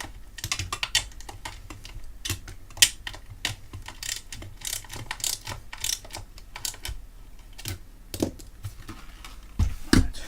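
Irregular light clicks and taps of hand tools and small metal hardware being handled inside a UPS case, a few per second, with a couple of heavier knocks near the end.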